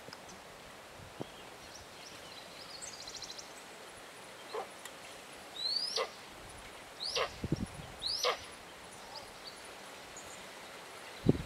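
Animal calls: three sharp yelping calls about a second apart, each rising quickly and then dropping steeply, after a brief rapid trill earlier.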